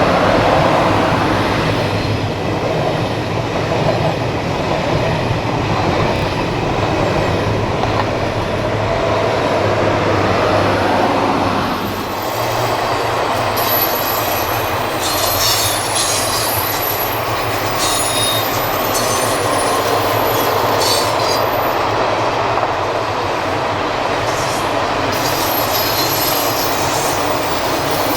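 Electric passenger train running past slowly with a steady rumble and hum. From about halfway, high-pitched wheel squeals come and go as it runs through.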